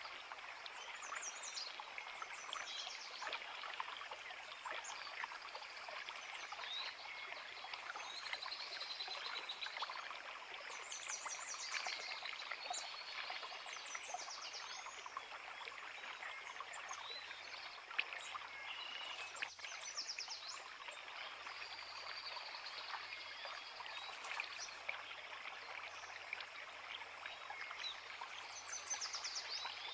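A creek running steadily over rocks, with several songbirds chirping and trilling throughout.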